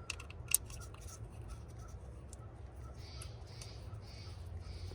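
A bolt on a 2012 Prius engine being run down with a ratchet: one sharp metallic click about half a second in, then light, evenly spaced ticks, followed by a few soft scraping strokes.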